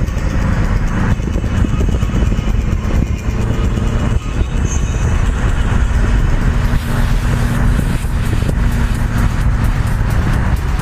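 In-cabin engine and road noise of a Subaru Impreza cruising at motorway speed: the flat-four engine's steady drone under tyre and wind noise.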